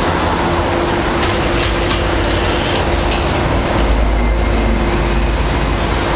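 Hitachi ZX650 demolition excavator working hard, its engine and hydraulics running with a constant tone, as it tears into a brick-and-concrete building, with masonry crumbling and a few knocks of rubble. A heavier rumble swells about four seconds in as more of the structure comes down.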